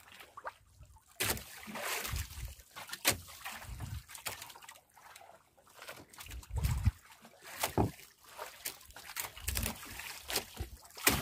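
Sea water sloshing and splashing against the hull of a small wooden outrigger boat, with scattered knocks and bumps from the boat and the fishing line being handled.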